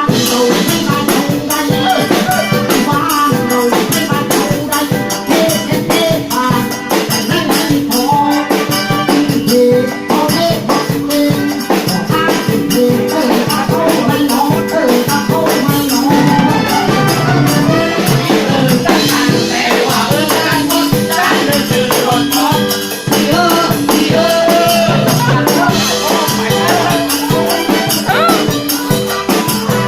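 A live band playing an upbeat southern Thai song, with a shaken rattle keeping a fast, steady beat over drums and melody instruments.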